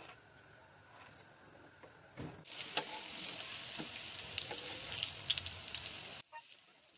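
Shami kababs frying in shallow oil on a flat griddle. The sizzle is faint at first, then turns to a loud crackling sizzle with many pops about two seconds in, and it cuts off suddenly less than a second before the end.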